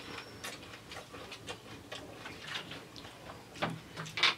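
Scattered light clicks and crunches of people eating pani puri: crisp puri shells being picked from plates and chewed, with a couple of louder clicks near the end.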